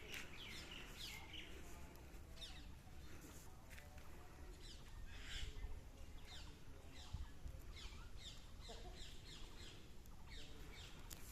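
Birds chirping and calling outdoors: many short, quick high notes, scattered irregularly, over a faint low rumble.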